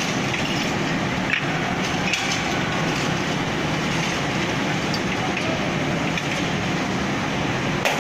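Steady machinery noise of a glass-cutting hall, with a few sharp cracks of scored float glass being snapped by hand along its cut lines, the loudest near the end.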